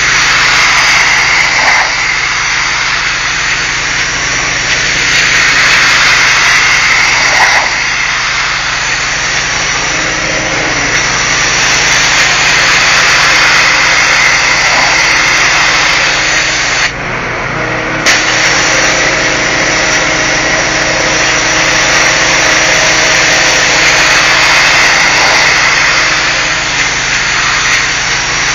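Pressure-washer jet spraying against brick, a loud steady hiss that rises and falls in slow sweeps as the wand moves across the wall. Under it runs a steady machine hum, and the spray drops out for about a second near the middle.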